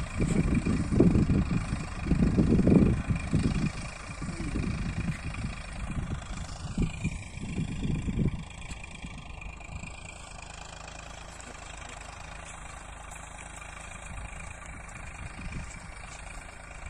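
Eicher 485 tractor's three-cylinder diesel engine running, loud and uneven for the first eight seconds or so, then settling to a steady, quieter idle.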